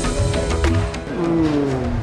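Background music: a melody with sliding, falling notes over a pulsing bass.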